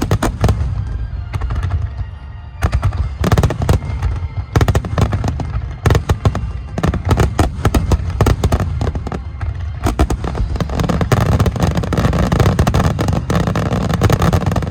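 Large aerial fireworks display: shells bursting in quick succession, with sharp cracks and crackle over a continuous low rumble. The bursts get denser and more continuous about two-thirds of the way in. Music plays underneath.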